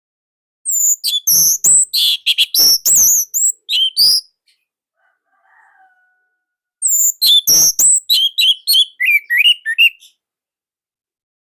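Orange-headed thrush singing: two loud phrases of rapid, varied whistles and chirps a couple of seconds apart. The second phrase ends in a quick run of lower notes.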